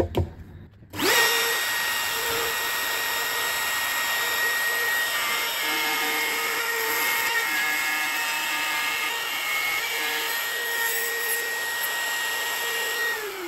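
Handheld trim router with a pattern-following bit cutting a curly maple pickup-ring blank. It starts about a second in with a quick rise to a steady high whine that holds under load, then winds down in falling pitch near the end.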